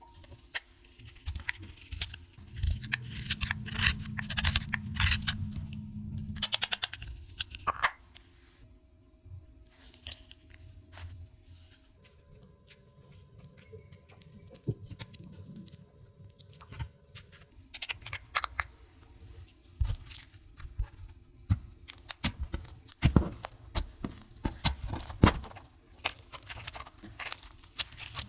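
Slime being mixed and squished, giving many small, irregular sticky clicks and crackling pops.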